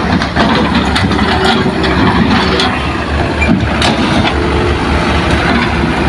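Heavy earthmoving machine's diesel engine running steadily, with a few sharp knocks over it.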